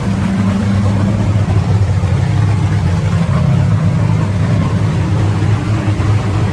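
Nitro-burning drag-racing engine idling steadily, a low continuous engine sound that doesn't rev up.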